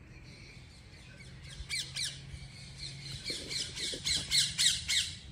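A bird calling outdoors in a rapid series of harsh squawks, each a quick downward-sweeping screech, starting about one and a half seconds in and growing loudest near the end.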